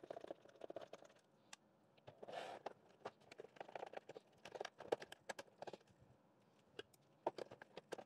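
A small screwdriver working screws out of a robot vacuum's plastic housing: faint, irregular light clicks and knocks of the bit and the plastic being handled.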